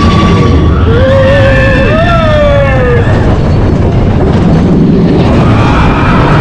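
Mine-train roller coaster running along its track with a steady loud rumble. Riders whoop in rising and falling cries from about one to three seconds in.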